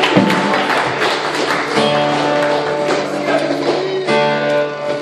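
Live band playing through a PA, with acoustic and electric guitars ringing out sustained chords over repeated strummed strokes.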